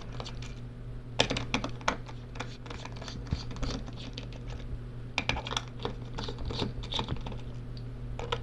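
Small Phillips screwdriver working tiny screws out of a plastic headset ear cup: irregular light clicks and scrapes, with a steady low hum underneath.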